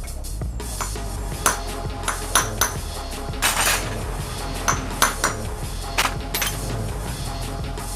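Irregular metal clinks and knocks of tools and parts being handled, with a short scraping rush about three and a half seconds in, over background music.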